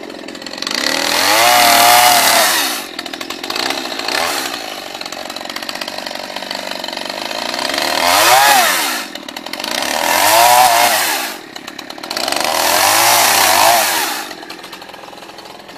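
Chainsaw running, revved hard in four main bursts, each rising and then falling in pitch, with a lower steady idle between them.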